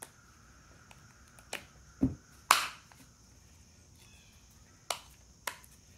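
Plastic housing parts of a Porter Cable cordless impact driver being handled and fitted together: a few separate sharp clicks and knocks, the loudest a clatter about two and a half seconds in.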